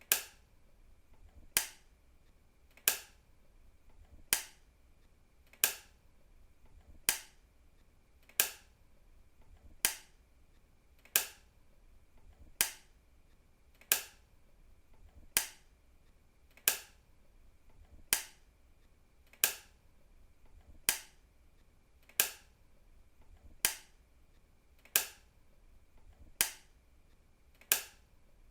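A switch being clicked on and off, one sharp click about every second and a half, evenly spaced, with a faint steady hum beneath.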